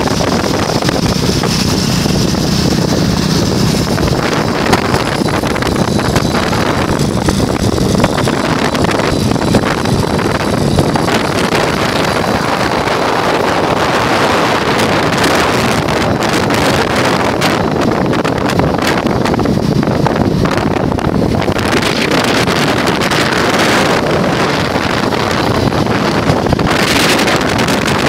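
Wind buffeting the microphone: a loud, steady rush, with a low hum underneath during the first several seconds.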